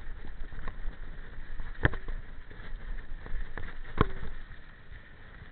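Mountain bike riding down a rough dirt singletrack: steady rumble and rattle of tyres and frame over the ground, with two sharp knocks from the bike hitting bumps, about two and four seconds in. It gets quieter near the end.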